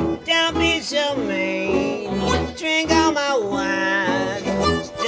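Acoustic blues trio playing an instrumental passage: plucked guitar over a walking bass, with a lead line of sliding, bending notes.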